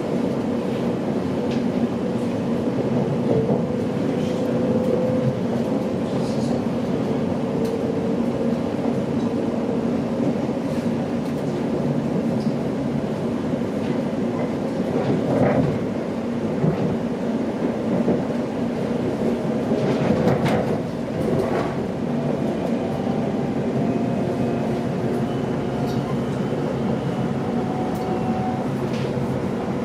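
Inside a moving electric passenger train: the steady rumble of the wheels on the track with a faint whine that rises slowly near the end, and a few sharp clicks from the track midway through.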